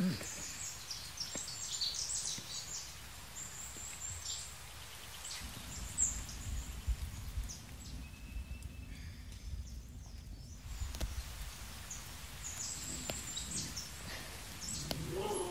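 Small birds chirping in short, repeated calls, with a low rumble through the middle stretch.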